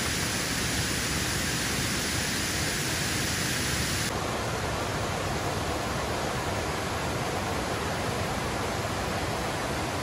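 Steady rush of water tumbling down a waterfall's cascades, with a slight change in tone about four seconds in.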